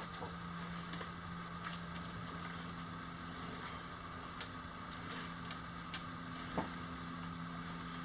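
Low, steady hum of a homemade battery-and-solar-powered electric bulldozer's drive motor as the machine creeps forward. Scattered light clicks and knocks run through it, the loudest a little past halfway, along with a few faint, short high chirps.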